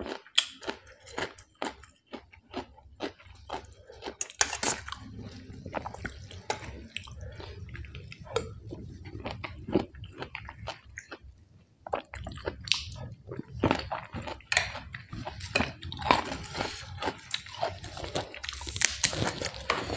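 A person chewing and crunching mouthfuls of rice noodles and raw vegetables close to the microphone, with irregular sharp clicks of a spoon and fork against a stainless steel tray.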